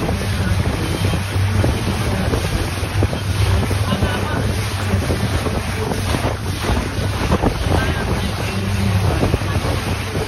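Wind buffeting the microphone over the steady low drone of a boat's engine, with water rushing and splashing past the hull.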